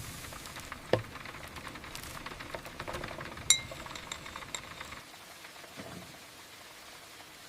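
Camp cookware and utensils clinking and knocking over a faint rain hiss, the loudest a single bright ringing clink about halfway through; it all grows quieter in the last couple of seconds.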